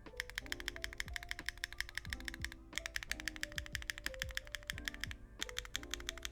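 Fast typing on a Neo60 Core mechanical keyboard fitted with Bsun Sea Salt Lemon tactile switches, a carbon fiber plate, no foam and GMK keycaps. The key strokes are crisp and clacky, and they pause briefly twice. Background music plays under the typing.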